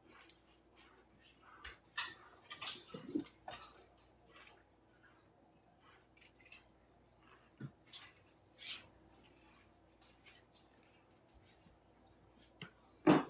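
Gloved hands breaking apart a brick of cornstarch: scattered soft crunches and crackles as chunks split and crumble, a loose cluster a couple of seconds in, a few more later, and the loudest one near the end.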